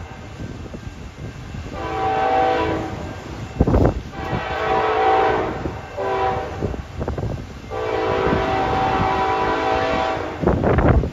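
Approaching CN freight locomotive's air horn sounding three long blasts, each a chord of several notes. A sharp knock comes between the first two blasts, and wind buffets the microphone near the end.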